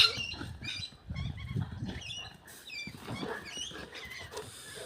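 Small birds chirping back and forth in many short, quick chirps, one bird calling to its companion. A sharp click right at the start, and a low rumbling noise underneath in the first two seconds.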